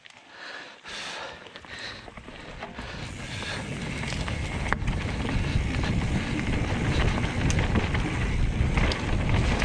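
Mountain bike rolling down a dirt trail, heard from a helmet camera: tyre noise on the dirt and wind buffeting the microphone, growing steadily louder from about three seconds in as the bike picks up speed, with a few sharp clicks from the bike.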